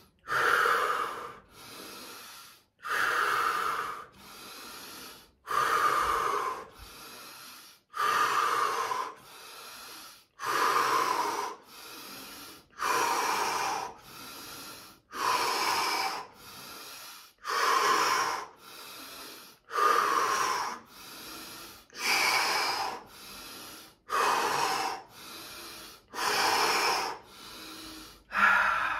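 A person doing a guided breathing exercise, breathing deeply and rhythmically. Each cycle is a loud, forceful breath followed by a softer one, about one cycle every two and a half seconds.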